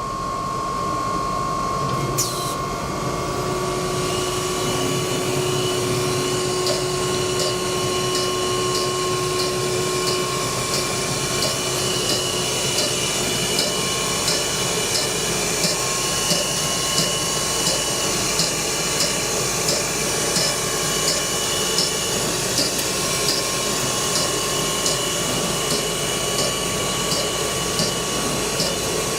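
Four-spindle CNC router running: steady spindle whine at a few fixed pitches over a constant rush of machine noise, with a light tick repeating about every two-thirds of a second.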